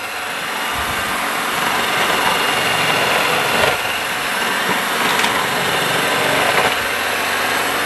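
Panasonic food processor motor running steadily at speed while bitter gourd is pushed down the feed tube onto the cutting blade and sliced, with a few faint clicks of pieces being cut.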